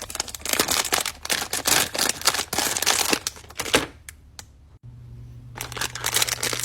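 Plastic and cardboard toy packaging being handled and opened: rapid crinkling and clicking that pauses about four seconds in, then starts again.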